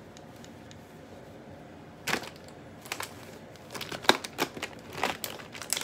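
Plastic packaging crinkling and items being handled and set down on a countertop: a string of sharp rustles and knocks at uneven spacing, starting about two seconds in.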